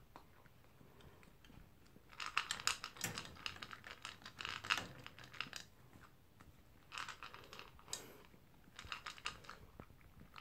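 Toy poodle eating from a plastic bowl: quick crisp crunching clicks that come in runs. The first and longest run starts about two seconds in, and shorter ones follow with pauses between.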